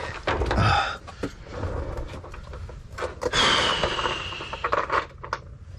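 Working noises under a car: light metal clicks and knocks as sway bar hardware and tools are handled, with a scrape lasting about a second and a half past the middle.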